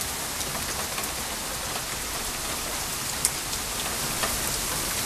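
Rain mixed with small hail falling steadily, with a few scattered sharp ticks of single impacts.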